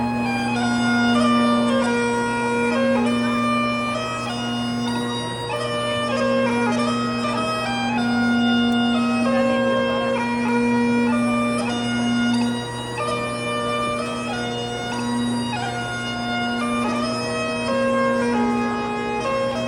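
Bagpipes playing a processional tune for the graduates: steady low drones held under a melody that moves from note to note.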